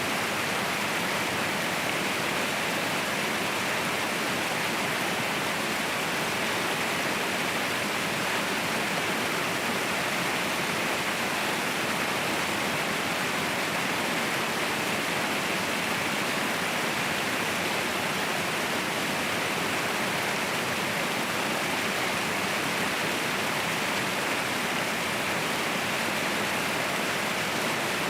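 Waterfall cascading steadily, an even rushing of falling water with no breaks or changes in level.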